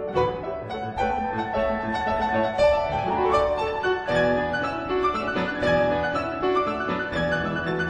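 Two pianos playing a classical Spanish dance, with dense, quickly changing notes and chords.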